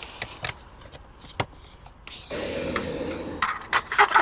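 Light clicks, knocks and scraping of sheet-metal roof-window flashing pieces being handled and fitted into place. A faint steady noise comes in about halfway through.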